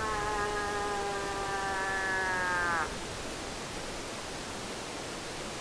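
A long cow moose call, held near one pitch, sagging slightly, then bending down and breaking off about three seconds in. A steady hiss runs underneath.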